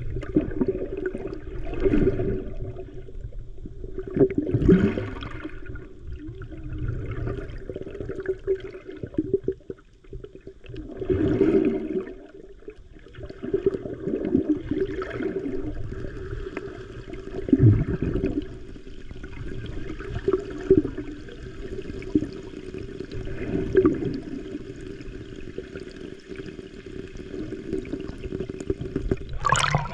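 Muffled water rushing and gurgling around an underwater camera, rising in surges every couple of seconds as the swimmer moves, over a steady low hum. Near the end it changes sharply as the camera breaks the surface.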